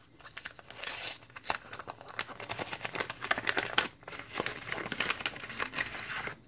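A thin paper packet being pulled and torn open by hand, the paper crinkling and rustling in quick bursts, with a short pause about four seconds in.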